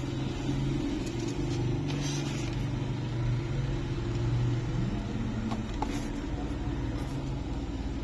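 Steady low mechanical drone of running machinery, with a couple of faint clicks a little past the middle.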